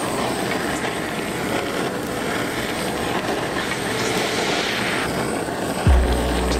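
Kitchen blowtorch flame hissing steadily as it toasts melted cheese sauce, the hiss strongest for a moment partway through. A deep low thump comes in near the end.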